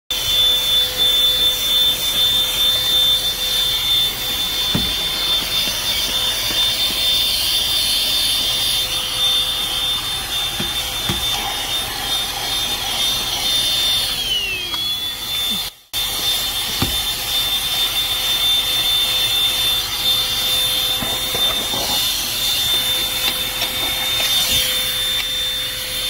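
Bullsone Power Max Ultra 12 V cigarette-lighter car vacuum running with a steady high motor whine as its brush nozzle works over a carpeted floor mat. About halfway through, the whine falls in pitch as the motor slows and cuts out for a moment, then it runs again at full speed. A few light knocks of the nozzle are heard.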